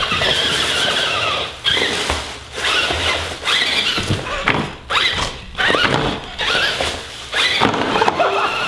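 Electric motor and gears of a battery-powered RC monster truck whining in repeated short bursts, the pitch rising and falling as the throttle is worked on and off.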